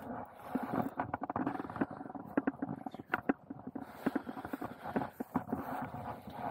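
Handling noise from a handheld camera being moved about: irregular knocks and clicks over a rustling.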